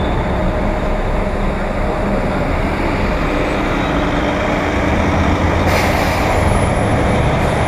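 Street traffic beside idling coach buses: a steady engine hum over a heavy low rumble, with a short hiss of air about six seconds in.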